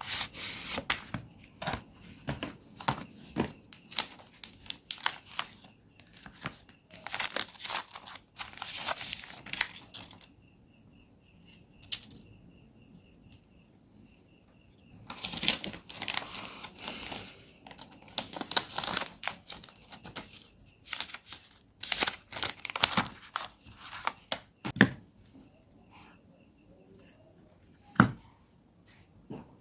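Bursts of scraping and crackling with sharp clicks from a Samsung Galaxy A03s being worked apart by hand, its plastic parts pried and handled. A faint, even ticking runs through a quiet stretch in the middle, and two sharp single clicks come near the end.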